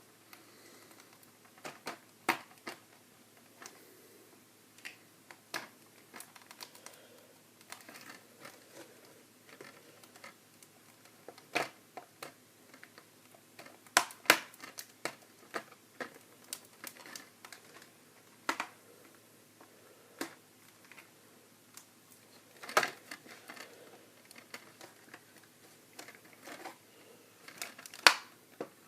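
Hard plastic toy castle playset pieces clicking and knocking as a tower is worked and pressed into place, in irregular, scattered clicks with a few louder snaps, the loudest near the end.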